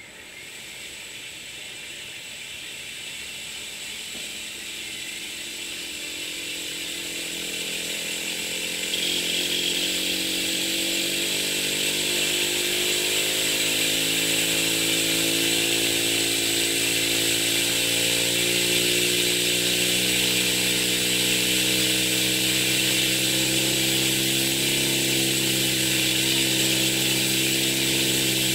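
Homemade acrylic pneumatic power graver, its piston oscillating: a steady buzz over a high hiss. It grows louder over the first several seconds as the piston gets going from a standing start, steps up about nine seconds in, then runs steady.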